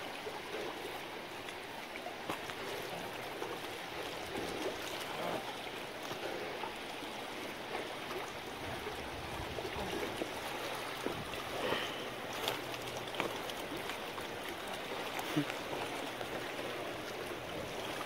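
Fast river water rushing steadily over the rocks, the tailwater below a dam running high while the dam is generating.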